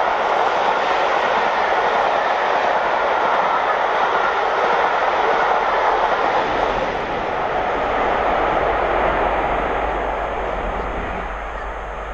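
Passenger coaches of a train passing at speed, a steady rush of wheels on rail and air. A low rumble comes in about halfway as the Class 47 diesel locomotive on the rear goes by, and the sound then slowly fades as the train draws away.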